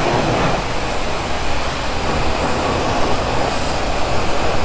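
High-pressure water spray from a self-serve car wash wand hissing steadily against a motorcycle, with a low steady hum underneath.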